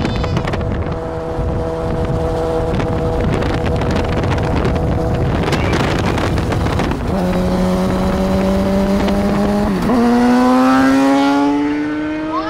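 Suzuki GSX-R750's inline-four engine heard from a car riding alongside, running at a steady pitch, changing pitch about seven seconds in, then climbing steadily in pitch and getting louder from about ten seconds in as the bike accelerates. Road and wind noise run underneath.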